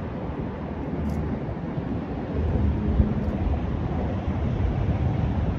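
Wind buffeting the microphone: a low, uneven rumbling noise that rises and falls with the gusts.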